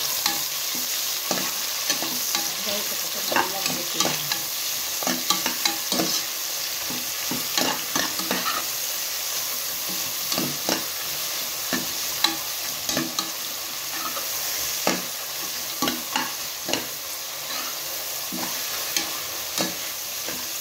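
Sliced onions sizzling in hot groundnut oil and ghee in a pressure cooker, stirred with a ladle that clicks and scrapes against the pot many times at irregular intervals.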